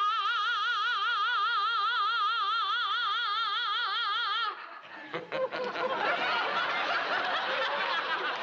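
A woman belts one long vocal note, sliding up into it and holding it loud for about four and a half seconds with a wide, even vibrato, as a voice-volume exercise. The note cuts off and studio audience laughter follows.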